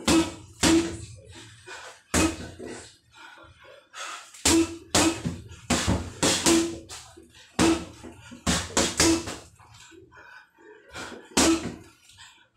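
Boxing gloves punching a hanging heavy bag: sharp thuds that come in quick combinations of two to four, with short pauses between them.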